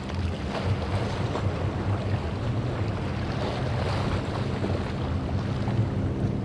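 Surf and wind noise on the microphone, with the low steady drone of a Fountain boat's triple Mercury 300 outboards underneath.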